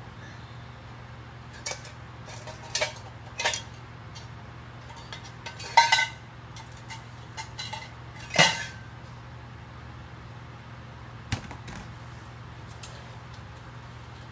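Metal scrap parts being handled and set down: a series of separate sharp clinks and clanks, the loudest two about six and eight seconds in with a brief metallic ring. A steady low hum runs underneath.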